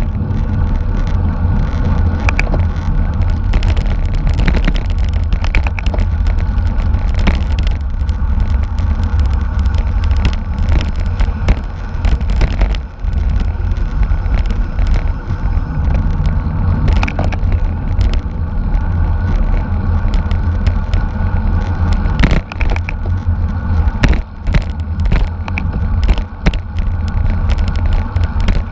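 Wind buffeting the microphone of a camera carried at racing speed on a road bicycle: a steady low rumble, with frequent sharp clicks and rattles from the bike over the road.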